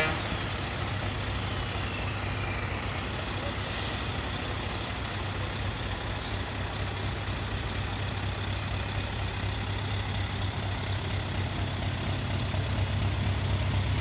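Trucks' diesel engines running as a slow convoy rolls past at close range: a steady low engine rumble with tyre and road noise, growing a little louder near the end as the next truck comes up.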